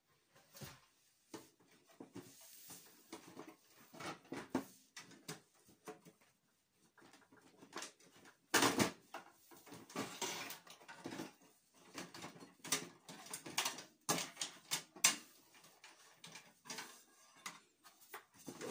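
Irregular clicks, knocks and rattles of metal and plastic as hands work inside an old desktop computer's steel case, unplugging cables and freeing the power supply. The loudest knocks come about halfway through and again a few seconds later.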